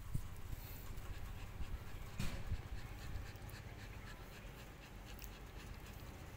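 A dog panting, with a short rustling knock about two seconds in.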